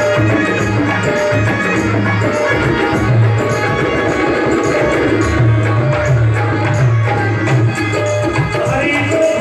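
Instrumental passage of a live Rajasthani bhajan band through a loudspeaker PA: sustained keyboard notes and a steady bass line over a hand-drum rhythm, with no singing.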